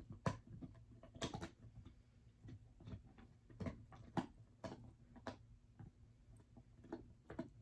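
Faint, irregularly spaced soft clicks and ticks over quiet room tone.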